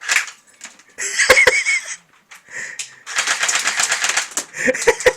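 Airsoft gun firing in rapid rattling bursts, with a few single sharp clicks.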